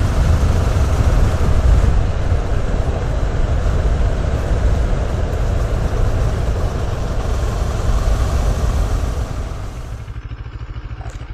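CFMOTO 650NK's parallel-twin engine running under wind noise while the bike is ridden. Near the end the wind noise falls away as the bike comes to a stop, and the engine idles.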